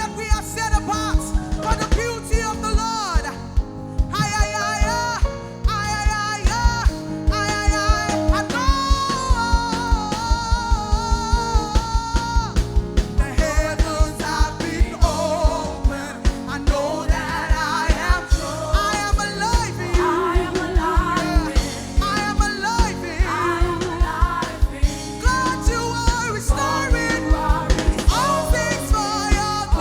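Church worship band playing, with a steady drum beat about twice a second under a singing voice whose words are not made out.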